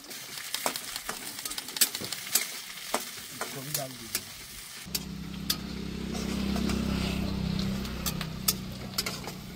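Chopped onions sizzling in hot oil in a steel kadhai, stirred with a steel spatula that scrapes and clicks against the pan. About five seconds in, a low steady hum joins and swells, then fades.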